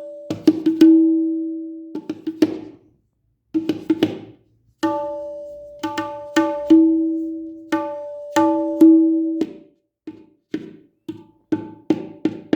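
Tabla tuned to E being struck to check a repair and its tuning: single open, ringing strokes that sustain for about a second, alternating with quick clusters of short strokes.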